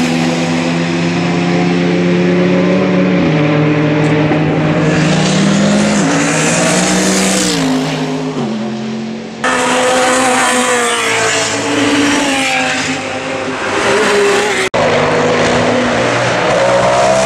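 GT race car engines at full throttle: one car accelerates away through the gears, its note climbing and dropping at about three upshifts. After two abrupt edits, more race cars pass close by, their engine notes rising and falling.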